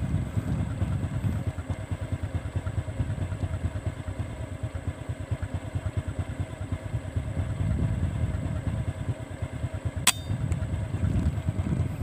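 A single air-rifle shot about ten seconds in, a short sharp crack, over a steady low pulsing rumble. The shot hit the bird.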